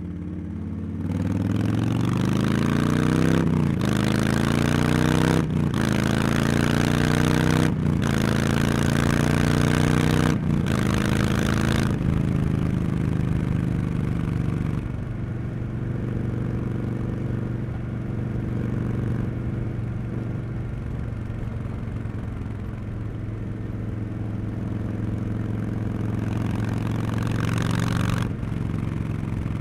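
Harley-Davidson Street Bob 114's Milwaukee-Eight V-twin through Cobra Neighbor Hater slip-on mufflers, accelerating hard and rising in pitch through four quick upshifts, each a short break before the pitch climbs again. It then backs off and cruises at a steady, lower pitch, with a brief rise in throttle near the end.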